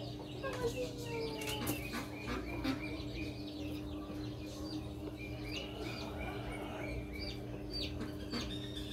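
Several birds chirping on and off: many short chirps and a few downward-sliding calls, over a steady low hum.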